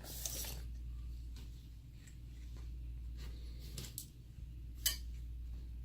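Small motor gearbox case being pried open by hand: a few sharp clicks and scrapes, the loudest about five seconds in, over a steady low hum.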